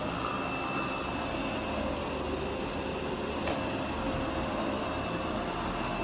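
Yeedi K700 robot vacuum running on carpet: a steady whir of its suction fan and brushes with a thin, high, steady whine over it.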